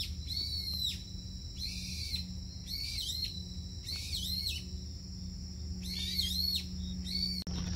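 A bird calling repeatedly: short arched calls, often in pairs, every second or so, over a steady high drone and a low hum.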